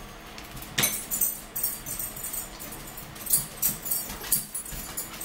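Irregular rattling and clicking of small hard things in plastic: a plastic pill bottle being handled, then ice shifting in a plastic cup as it is picked up. The loudest click comes about a second in, with a cluster of rattles near the end.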